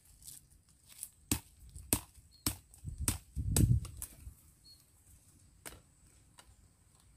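Sharp, irregular knocks and clicks of a knife cutting and tapping thin wooden sticks, about a dozen strikes, the loudest about three and a half seconds in, dying away after about six seconds.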